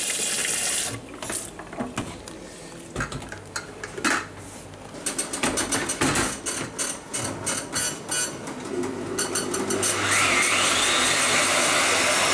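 Tap water runs briefly, then knocks and rattling as the blender jug and lid are handled and fitted. About ten seconds in, the blender motor starts and runs steadily with a rising whine, grinding soaked rice and grated coconut with warm water into appam batter.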